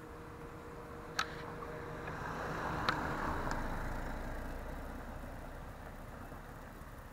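A car passing close by and driving away: its engine and tyre noise swell to a peak about three seconds in, then fade. A sharp click sounds about a second in.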